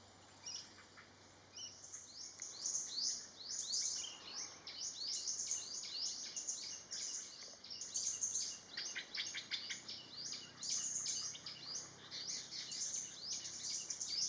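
Songbird calling in a fast, continuous run of high, thin chirping notes, starting about two seconds in, with a quick rattling stretch around the middle.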